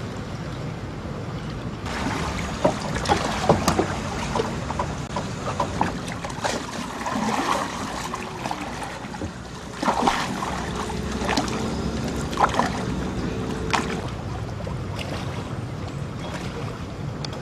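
A wooden perahu tambang river ferry being rowed by hand, with irregular wooden knocks and clunks from the oar against the hull, over a steady wash of river water and wind on the microphone. A faint steady hum joins in for a few seconds past the middle.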